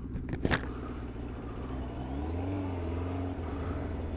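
Motorcycle engine running at low speed in slow traffic, its note rising as the bike pulls forward about two seconds in, then holding steady.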